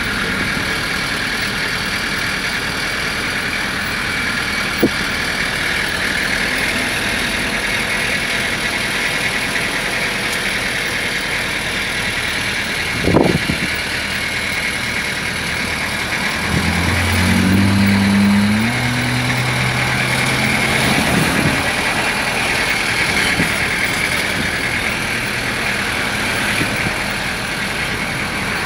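Steady motor vehicle engine and road noise. About halfway through, a deeper engine note comes in and rises in steps for a few seconds. There is one short thump about 13 seconds in.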